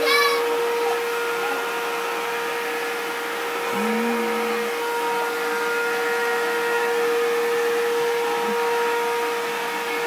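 Vacuum cleaner running steadily: a constant whooshing hum with a strong, steady motor whine.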